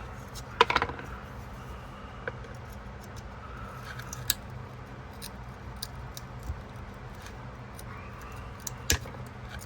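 Small metallic clicks and taps from handling the folding knife and hand tools: a quick cluster of clicks about a second in, scattered light ticks, and one sharp click near the end, over a steady low hum.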